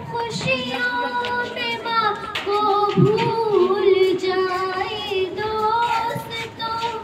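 A young girl singing solo into a handheld microphone, with long held, wavering notes.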